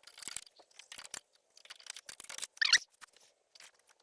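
Small irregular clicks and scrapes of a car radio bezel being fitted to the dash and its mounting nuts started by hand, with a short squeak about two and a half seconds in.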